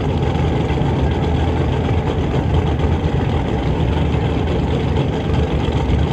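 Drag race cars' engines idling at the starting line, a steady low rumble.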